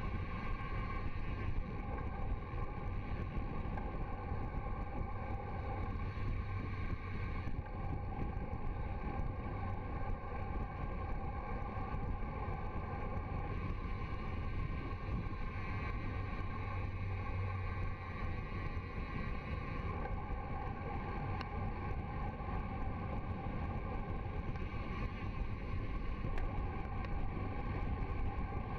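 Steady rush of wind over a bicycle-mounted camera's microphone on a fast road-bike descent at about 50–57 km/h, with no breaks or sudden sounds.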